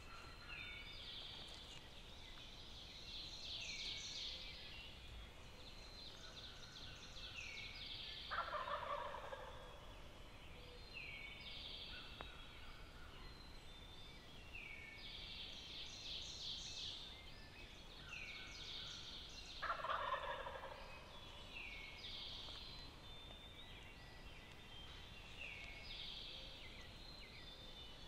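Wild turkey gobblers gobbling, two loud gobbles about eleven seconds apart. Between and under them, songbirds sing steadily in short repeated phrases.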